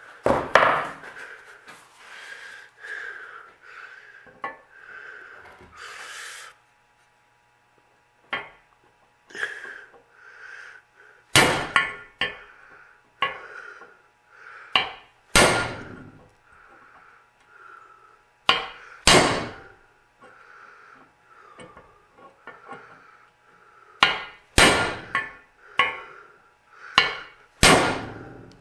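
Ball peen hammer striking a steel socket used as a driver to tap a trailing-arm bearing down into its bore: sharp metallic blows, single or in pairs, at an uneven pace with short pauses between.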